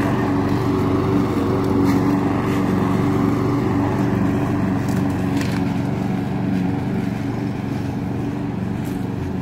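Lawn mower engine running steadily as it cuts grass, growing slightly fainter toward the end.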